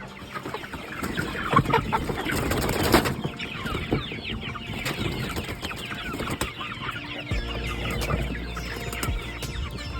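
A flock of chickens clucking and squawking, many short calls overlapping. A low steady rumble comes in about seven seconds in.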